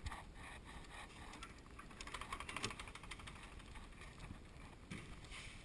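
Metal barrel bolt and wooden door rattling and clicking as the door is unlatched and pushed open, the clicking thickest about two to three seconds in.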